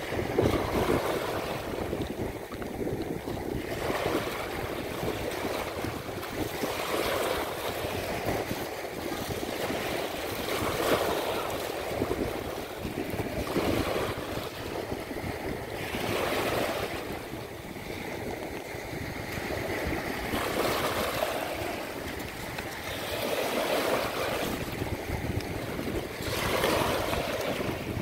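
Sea-of-Azov surf: small waves breaking and washing over a pebble shore, with a fresh surge every few seconds, and wind rumbling on the microphone.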